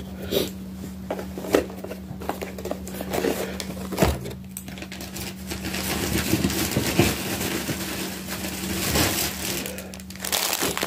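Plastic packaging crinkling and rustling as items are handled, with a few knocks; the rustling grows busier after the middle. A steady low hum runs underneath.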